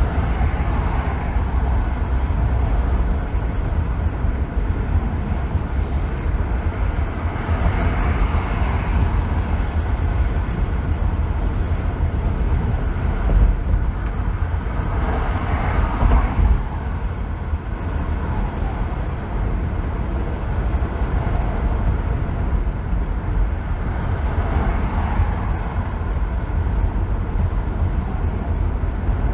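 Car driving on a freeway: a steady deep road rumble with tyre and wind noise, swelling and easing a few times.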